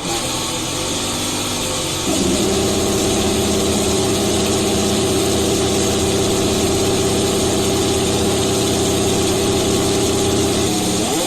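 Ferrari F1-75's 1.6-litre turbocharged V6 running just after fire-up. It holds a steady idle, steps up to a higher, steady idle about two seconds in, and near the end its pitch rises sharply as it is revved.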